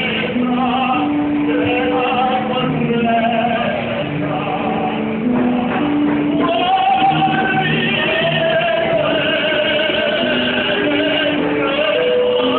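Operatic singing: a singer holds long, wavering notes that change pitch every second or so, over a musical accompaniment.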